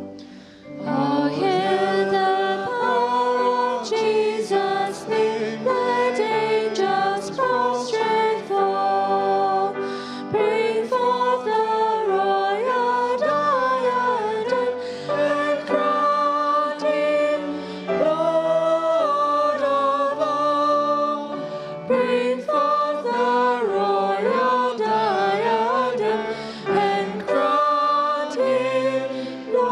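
A hymn sung by a group of voices over instrumental accompaniment, starting about a second in after a quiet instrumental lead-in.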